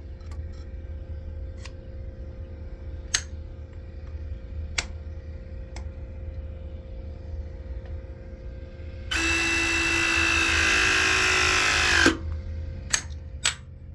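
Ridgid ProPress battery press tool running for about three seconds as it crimps a press fitting onto copper pipe, its pitch dipping slightly near the end and stopping with a click. Before and after come a few light handling clicks over a steady low hum.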